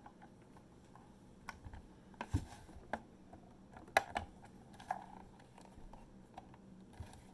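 Irregular sharp plastic clicks and snaps, loudest about four seconds in, as the snap-fit clips of a WD Elements external hard drive's plastic case are pried apart with a thin tool.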